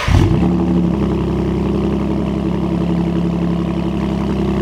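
2018 Ford Raptor's 3.5-litre twin-turbo EcoBoost V6 through an AWE 2FG exhaust with a performance H-pipe, catching on start-up with a brief flare, then settling into a steady idle.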